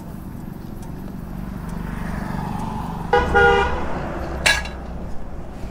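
Air hissing faintly from a leak at an old puncture repair in a motorcycle's rear tyre, over a low rumble. About three seconds in a vehicle horn toots once, briefly, the loudest sound, and a sharp knock follows about a second later.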